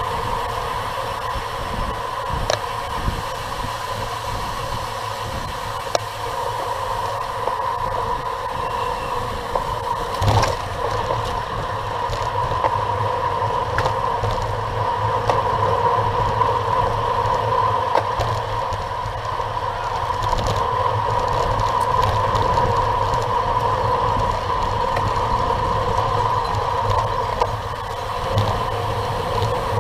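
Steady rush of wind and tyre noise from a road bike riding in a racing pack at about 30 mph, with a constant hum and a few sharp knocks from road bumps, the loudest about ten seconds in.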